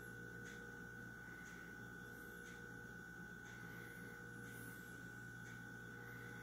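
Quiet room tone: a steady electrical hum with a thin, faint high tone, and a few faint soft ticks scattered through it.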